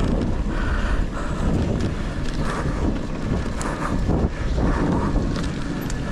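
Mountain bike riding down a dirt trail: wind rushing over the microphone and the rumble and rattle of the bike, with scattered sharp clacks and knocks.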